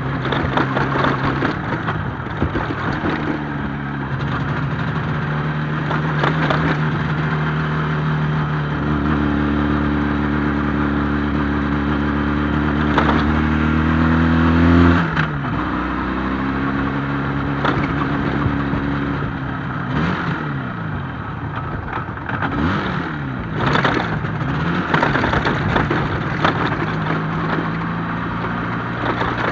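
IZh Jupiter-5 two-stroke twin engine running, its revs held, then climbing, dropping sharply about halfway through, and rising and falling several times near the end, with scattered knocks and clatter. It is running poorly.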